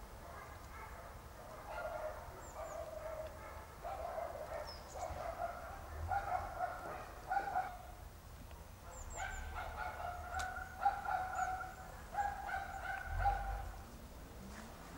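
Domestic fowl calling in two runs of repeated, evenly pitched calls, with faint high chirps of small birds.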